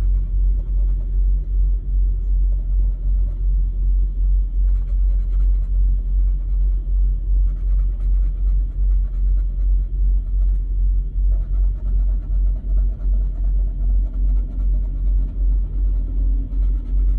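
Steady low rumble that pulses a few times a second, like a running engine heard from close by.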